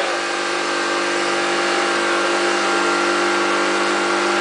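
Small motorbike engine idling steadily, with an even, unchanging note.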